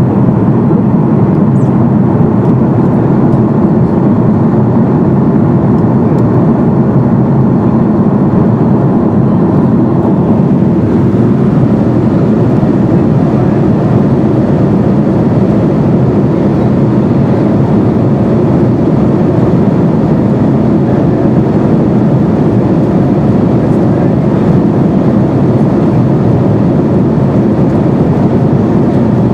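Airbus A330-200 jet engines and airflow heard from inside the passenger cabin: a loud, steady, low rumbling noise with no breaks.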